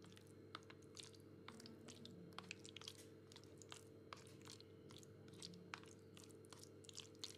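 Faint, irregular clicks and soft squelches of a black plastic spoon stirring saucy pasta in a plastic tray, over a low steady hum.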